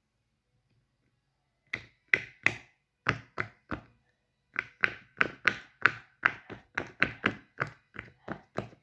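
A fidget toy making a run of sharp taps, about three a second, starting after nearly two seconds of quiet.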